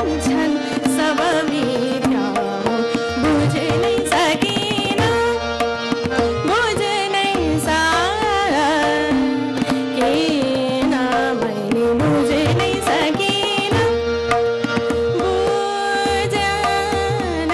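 A woman singing Hindustani classical vocal in raga Rageshree, her voice gliding and ornamenting the melody, with tabla keeping the rhythm, harmonium following the melody and a tanpura drone held steady underneath.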